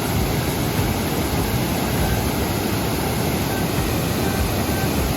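Waterfall rushing: a steady, loud noise of falling water.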